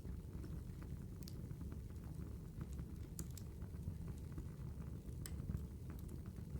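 Campfire burning: a steady low rumble with irregular sharp crackles and pops from the burning wood.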